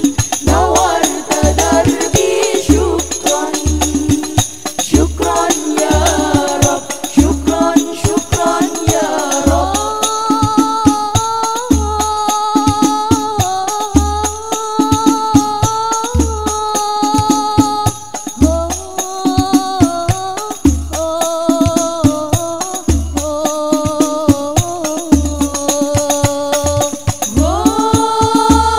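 Al-Banjari sholawat: women's voices singing an Arabic devotional song together in long, wavering held notes, over hand-struck frame drums (terbang) with sharp slaps and a deep drum beat roughly once a second.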